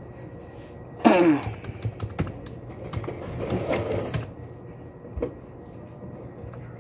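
Computer keyboard typing: scattered key clicks over a steady low hum. About a second in, a brief, loud falling pitched sound cuts in.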